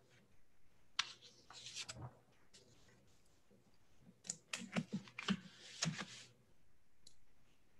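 Faint scattered clicks and rustles of computer keyboard and mouse use, with a burst of quick ticks about four to six seconds in.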